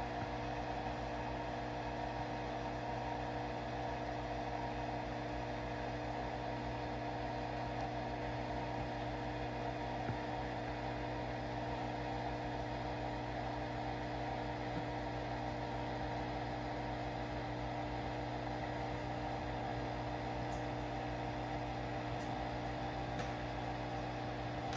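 Steady hum of running reef-aquarium equipment: several constant tones over a faint hiss, with no change throughout.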